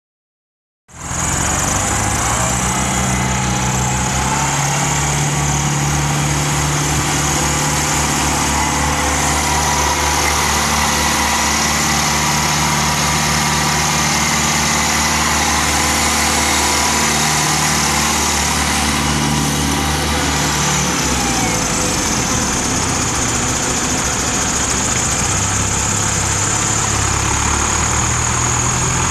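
1997 Ford New Holland 6640SL tractor's four-cylinder diesel engine idling steadily, its low note shifting about three-quarters of the way through.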